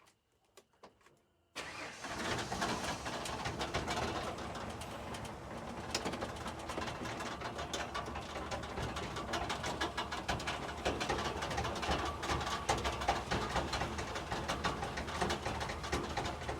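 The inline-six engine of a 1992 Ford F150 running. It comes in suddenly about a second and a half in and holds steady.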